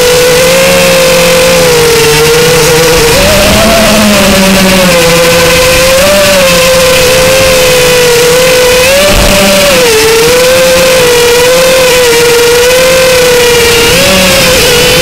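Furibee X215 Pro racing quadcopter's brushless motors and propellers whining in flight, picked up loud and close by a camera mounted on the drone. The whine holds steady with its pitch wavering up and down as the throttle changes, rising briefly several times.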